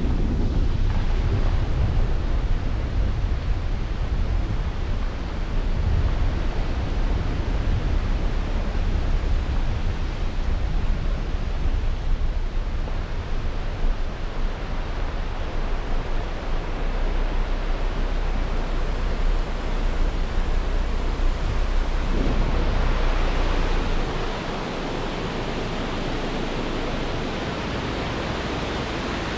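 Rushing of a rocky mountain stream tumbling over boulders, a steady even roar of water. A low rumble lies under it for most of the stretch and drops away about four-fifths of the way through, leaving the brighter rush of the water alone.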